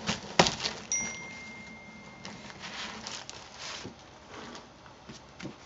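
Cellophane wrapping and paper cards being handled and opened: crinkling and rustling with a sharp click near the start, and a thin steady high tone for about a second and a half, starting about a second in.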